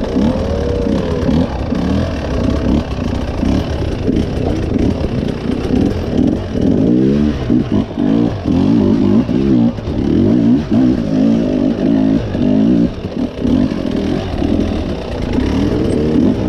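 Enduro motorcycle engine revving rapidly up and down, over and over.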